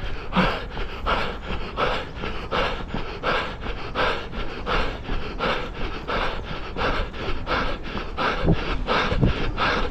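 A runner's hard panting breath and footfalls in an even running rhythm, about three strokes a second.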